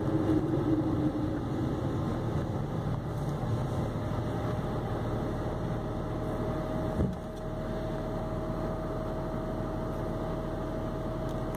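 Car with an automatic gearbox coasting down to a stop, heard from the cabin: engine and drivetrain noise with a tone that falls over the first second. About seven seconds in there is a single short knock as the car comes to rest. After it the engine idles at about 1000 rpm with a steady thin hum.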